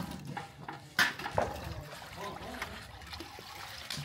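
Water trickling and sloshing, with a sharp knock about a second in.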